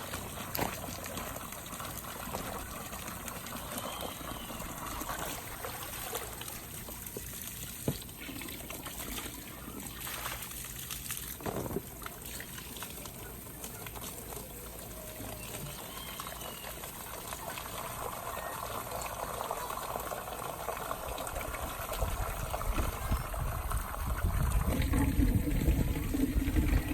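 Water left running from a hose into a goat's water container, a steady trickle and splash. A low rumble builds near the end.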